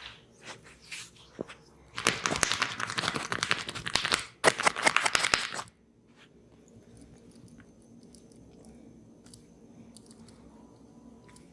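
Head massage close to the microphone: hands working through the hair, giving two bursts of dense crackling, the first about two seconds in and the second after a brief break, then only faint soft ticks.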